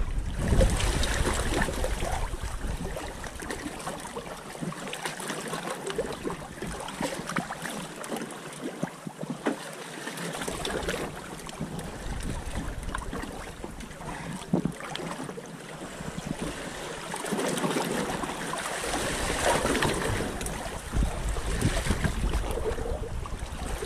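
Sea water sloshing and splashing against the stern of a small boat, with gusts of wind buffeting the microphone.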